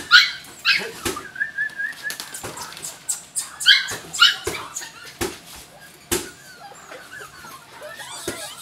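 Jack Russell Terrier puppies yipping and whining: a few short, high yips at the start, a held whine about a second in, more yips around four seconds in, then quieter whimpers, with sharp light clicks throughout.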